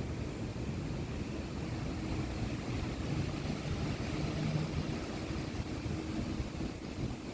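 Steady low rumble of engine noise with a faint humming tone.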